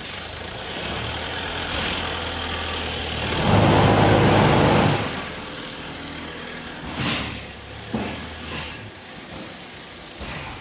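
Concrete block machine running with a steady low hum, and a loud burst of vibration lasting about a second and a half as the paver mold is shaken to compact the concrete mix. Several sharp knocks follow in the second half.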